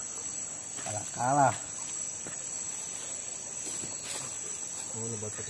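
Insects trilling in the surrounding forest, a steady high-pitched chorus that holds without a break.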